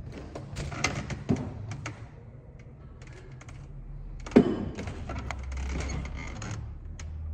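Irregular clicks, knocks and clatter of personal belongings being picked up and set down, with one sharp thud about four and a half seconds in.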